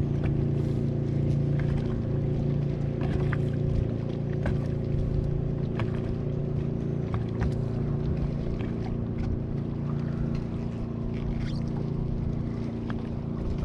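Boat motor running steadily at one pitch, with faint scattered clicks and knocks.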